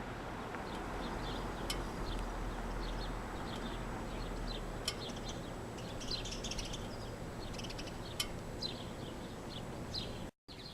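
Small birds chirping with many short, scattered calls over a steady outdoor background hum.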